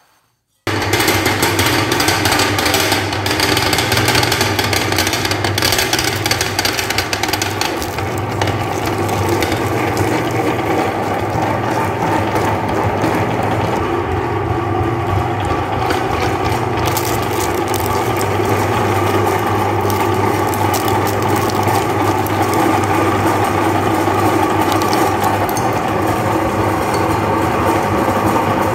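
Electric meat grinder switched on about half a second in, its motor and gearbox running with a steady low hum and mechanical gear noise while the auger grinds frozen chocolate-coated ice cream bars, with scattered clicks in the first several seconds.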